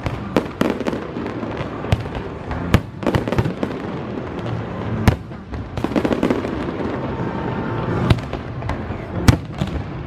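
Aerial fireworks going off: an irregular run of sharp bangs and crackling pops over a continuous rumble, with the loudest bangs about five seconds in and near the end.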